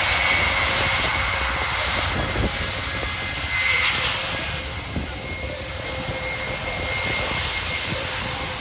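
Airbus A400M's four TP400 turboprop engines and eight-bladed propellers running as the aircraft rolls along the runway after landing: a dense engine noise with a steady high whine, swelling briefly about four seconds in.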